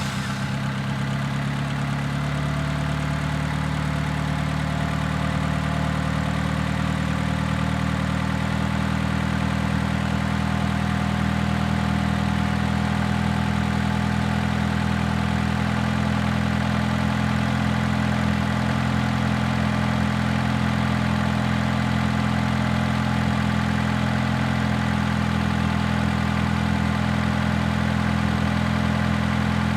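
Car engine idling steadily just after starting, a low even hum that holds level throughout.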